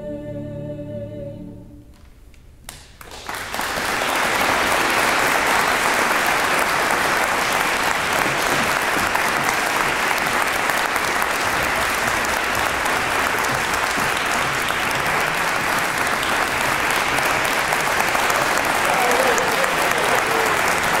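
A choir's held final chord fades out over about two seconds; after a brief hush, an audience breaks into steady applause.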